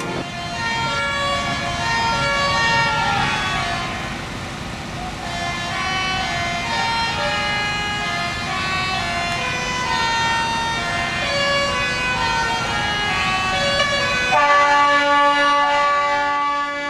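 Background music: a melody of held notes that slide up and down, over a dense hissing layer that drops out about two seconds before the end, leaving clearer held notes.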